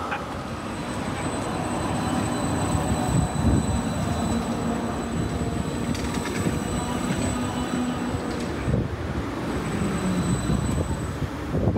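Würzburg city tram running on its rails: steady rolling noise with a thin high whine through most of it.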